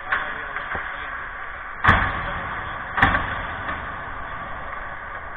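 Two loud bangs about a second apart, each with a short echo, over a steady background noise, with a couple of fainter knocks just before them.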